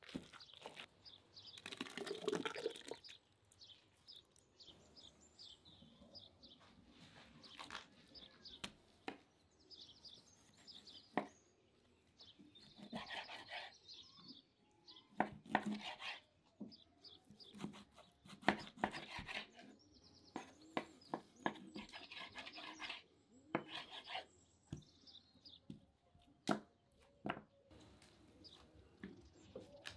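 Close-up food-handling sounds: a spoon working through thick sauce in a metal pot, with a heavier wet stirring burst about two seconds in, then a knife slicing through a raw rack of ribs on a wooden cutting board, with scattered knocks and clicks.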